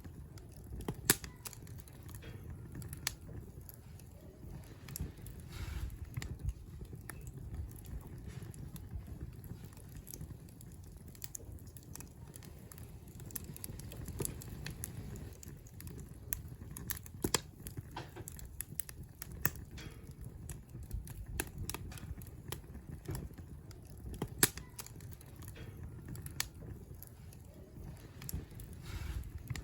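Wood fire crackling: irregular sharp pops and snaps over a low steady rumble of the flames, with a louder pop about a second in and another near 24 seconds.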